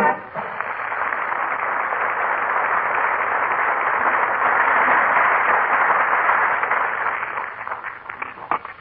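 Studio audience applauding after a musical number, a steady wash of clapping that dies away with a few last claps near the end.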